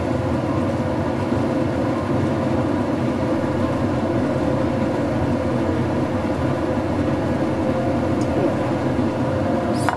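A steady mechanical drone that stays even and unchanged, with no distinct knocks or other events.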